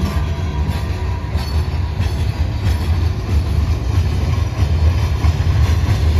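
Freight train cars, gondolas and steel-coil cars, rolling past on steel rails: a steady low rumble of wheels on track with faint clicks at the rail joints.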